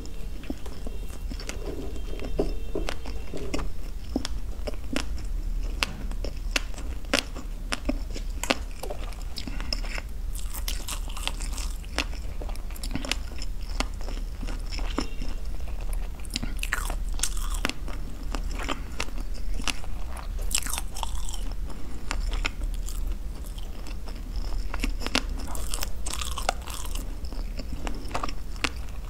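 Close-miked chewing of a mouthful of nori-wrapped sushi roll topped with orange fish roe: an irregular run of sharp wet clicks and small crunches.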